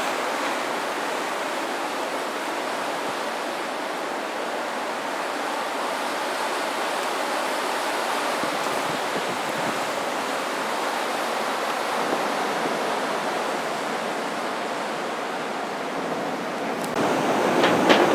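Strong blizzard wind blowing steadily, an even rushing noise that grows louder and gustier near the end.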